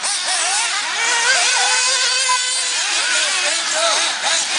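Several 1/8-scale nitro RC buggies racing, their small glow-fuel engines whining, the pitches rising and falling as they accelerate and brake.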